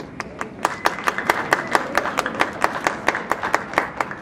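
Fast, steady hand clapping close by, about four to five claps a second, over a wash of crowd applause.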